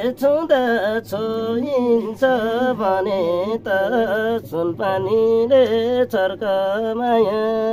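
A man singing a Nepali folk song unaccompanied: a single voice in long, ornamented held notes that waver in pitch, with short breaks between phrases.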